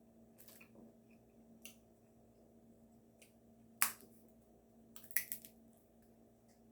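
A few sharp clicks and small cracks from handling food and tableware while eating: single ones about half a second and a second and a half in, the loudest near four seconds in, then a quick run of three or four a second later. A faint steady hum runs underneath.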